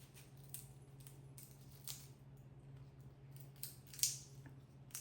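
Indian ringneck parrot cracking peanut shells with its beak: a few sharp cracks and crunches, the loudest about four seconds in. A steady low hum runs underneath.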